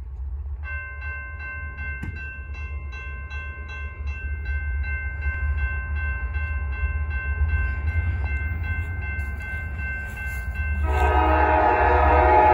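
Diesel freight locomotive's horn sounding a long, steady chord while the train is still in the tunnel, over the low rumble of its engines. Near the end the horn becomes much louder and fuller as the locomotive comes out of the tunnel.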